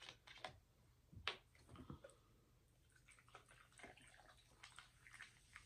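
Peach soda poured faintly from a plastic bottle into a glass of ice, with fine fizzing and crackling over the ice in the second half. Before it come a few soft clicks from handling the bottle and its cap, the sharpest about a second in.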